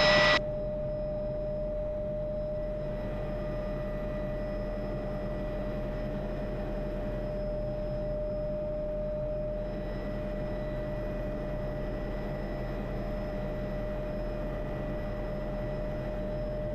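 Cabin noise of an MD500E turbine helicopter in cruise: a steady low rumble with a constant pitched whine over it, unchanging throughout.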